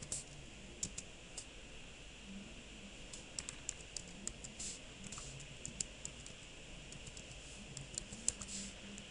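Typing on a computer keyboard: sharp key clicks coming in uneven bunches, with short pauses between words.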